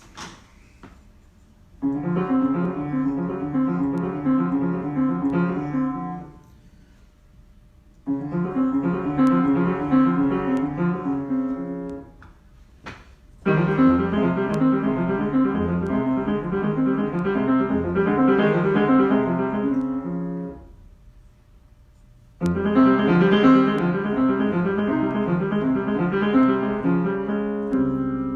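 Improvised piano playing in four phrases of several seconds each, with short pauses between them.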